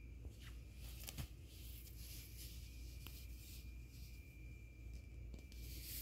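Faint rustling of a plush toy's fur and a quilted cover being handled, in uneven bursts with a few light clicks, over a faint steady high tone.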